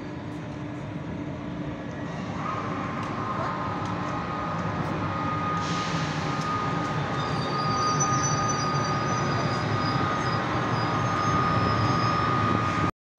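Newag Griffin EU160 electric locomotive rolling slowly past along the platform with its train, getting louder as it comes alongside. A steady high whine sets in about two and a half seconds in and holds.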